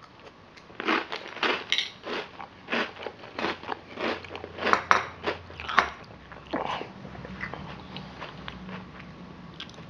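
A mouthful of Cap'n Crunch's Red, White and Blue Crunch cereal being chewed, with crisp crunches coming quickly for the first five seconds or so and then easing into softer chewing.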